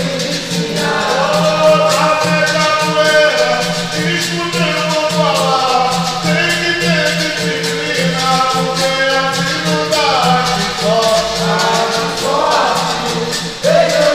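Live capoeira roda music: several voices singing a capoeira song over a pandeiro, a berimbau and hand clapping, with regular percussive strokes throughout.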